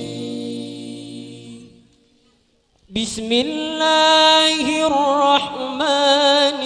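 Men's voices chanting together without instruments fade out about two seconds in. After a short silence a single amplified male voice begins singing long, ornamented held notes.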